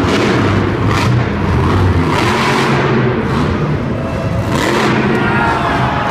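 Monster truck's supercharged V8 running hard and revving, its pitch rising and falling as the truck throws itself onto its back wheels.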